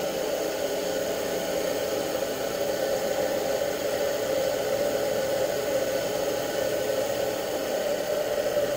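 A 2003 washing-machine universal motor (1 HP, rated 220 V AC) running at high speed with no load on 12 V DC from a UPS battery, its armature and field wired in series. It gives a steady whir at an even pitch.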